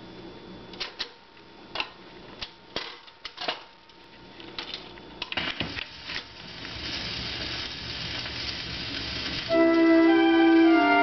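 Webcor record changer cycling: a series of mechanical clicks and clunks as a record drops onto the platter and the tonearm swings over and sets down. Then the record's surface hiss rises, and about nine and a half seconds in the music starts, played through the console's speaker.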